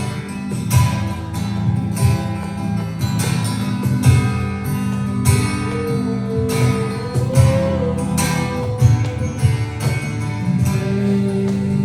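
Instrumental passage of a live worship band between sung sections, with guitar prominent over sustained chords and drums keeping a steady beat. A melodic lead line slides in pitch in the middle.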